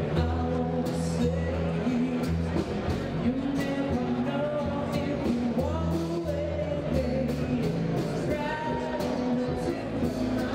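A band playing rock and roll: a singer over a steady bass line and drums.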